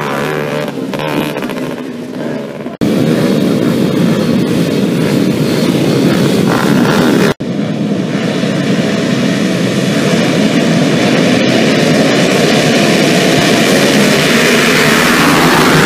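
Motocross motorcycle engines running loudly and continuously, broken by two abrupt cuts where the sound changes, about three and seven seconds in.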